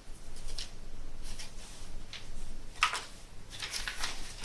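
Paper inserts and packaging rustling as they are handled and taken out of a box, with a sharper crinkle about three seconds in.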